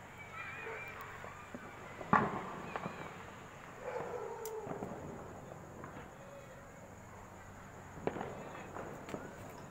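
Firecrackers going off: one sharp bang about two seconds in, then a few fainter pops later on.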